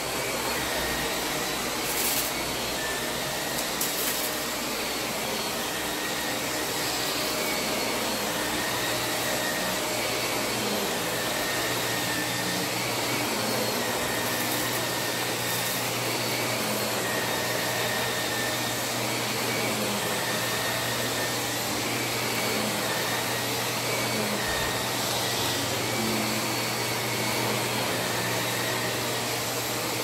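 Shark Rotator upright vacuum cleaner running steadily as it is pushed over plush carpet, a constant motor hum with a high whine. Two brief clicks sound about two and four seconds in.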